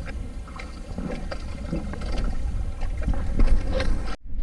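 Wind rumbling on the microphone on a small boat at sea, with scattered small knocks and clicks. The sound drops out for a moment near the end.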